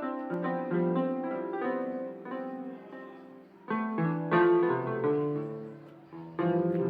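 Electronic keyboard played with a piano sound: a flowing series of chords, with louder fresh chords struck about four seconds in and again near the end.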